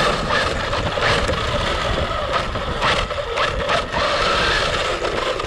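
Radio-controlled car running hard, its motor whine mixed with tyre and ground noise and several sharp knocks in the middle.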